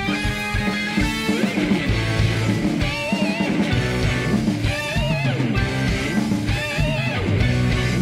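A live rock band: electric guitars over drums and bass. A lead guitar repeats a lick about every two seconds, bending up to a held note with wide vibrato.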